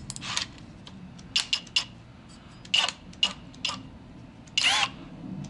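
Hole saw being fitted into a cordless drill's chuck: a string of sharp metal clicks and clinks, with one longer, slightly whirring sound near the end.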